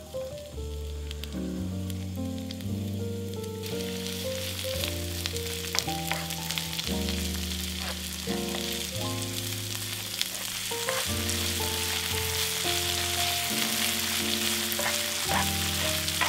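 Sliced onions sizzling as they fry in hot oil in a nonstick pan, the sizzle strengthening about four seconds in, with scattered clicks and scrapes of a spatula stirring them. Background music plays throughout.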